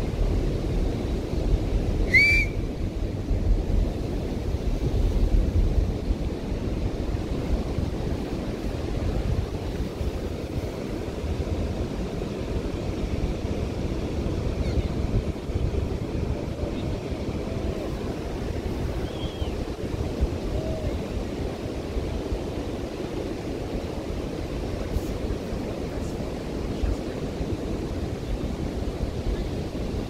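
Ocean surf washing steadily onto the beach, with wind rumbling on the microphone in the first few seconds. A single brief high chirp sounds about two seconds in.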